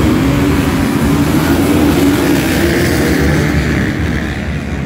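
Dozens of dirt bike engines running together in a massed start line, a dense mixed drone with revving that rises in pitch over the first couple of seconds.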